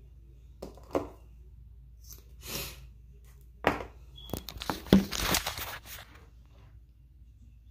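Handling noise close to the phone's microphone: a sharp click, a short rustle, then another click. A cluster of clicks and scraping follows, about four to six seconds in, as makeup items are handled and the phone is moved.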